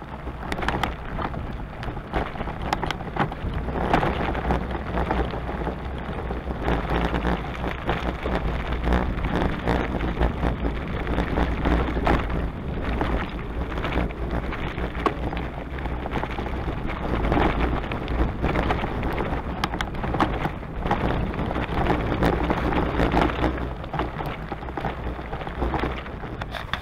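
Wind buffeting the microphone: a steady low rumble with many small crackles over a constant noise.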